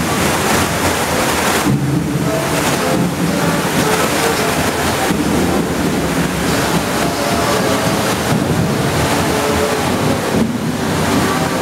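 Loud, steady rush of flowing water around a ride boat moving through a dark water channel, with faint short tones above it.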